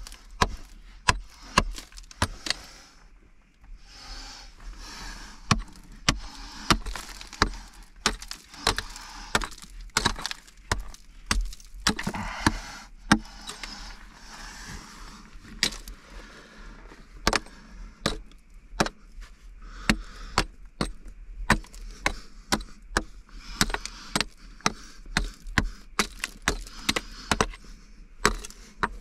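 Irregular series of sharp knocks and clinks, one to two a second, with scraping or rustling between them and a short pause about three seconds in.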